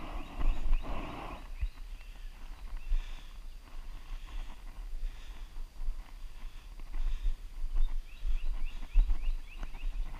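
Footsteps and bumps of a body-worn camera while walking across a wooden footbridge and trail, with a bird singing a quick run of short rising notes about eight seconds in.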